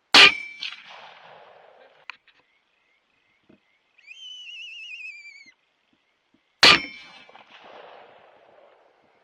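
Two rifle shots about six and a half seconds apart, each a sharp crack with a ringing tone and an echo dying away over about two seconds. Between them, a wavering high whistled call lasting about a second and a half, falling in pitch at its end.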